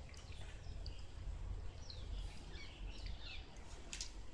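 Birds chirping over a steady low outdoor background rumble, with a brief sharp sound near the end.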